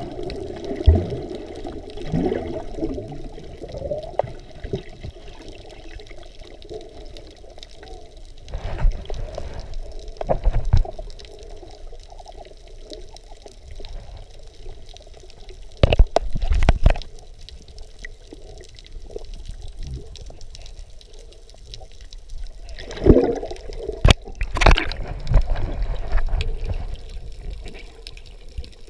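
Muffled underwater sound through a GoPro's waterproof housing: water sloshing and bubbling, with a few sharp thumps now and then.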